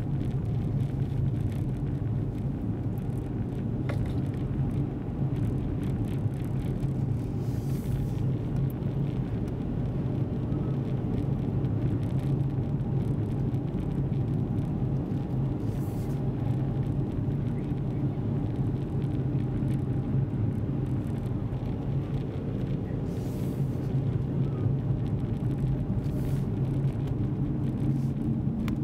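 Car cabin noise while driving: a steady low drone of engine and tyres on the road, with a few brief swells of higher hiss.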